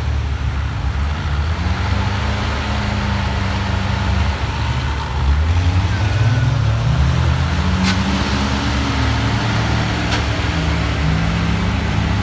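Engines of off-road 4x4s working under load during a tow-strap recovery of a UAZ-469 stuck in sand. A steady engine drone rises in pitch and grows louder about five seconds in as the engines are revved, then eases back near the end.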